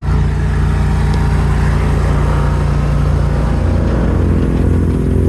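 A large engine running steadily at a constant speed, with a deep even hum.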